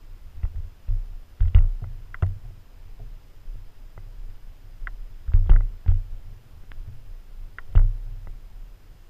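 Footsteps and handling knocks from a hand-held camera carried by someone walking over grass and dirt. There are a few irregular dull thumps over a low rumble, the loudest about a second and a half, five and a half, and eight seconds in.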